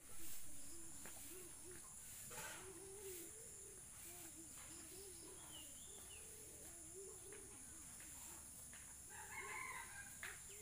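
Domestic chickens clucking in short, low calls that repeat over and over, with a rooster crowing.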